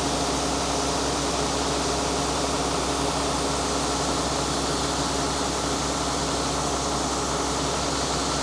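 Combine harvester running steadily while harvesting soybeans, heard from inside the cab as an even machine hum.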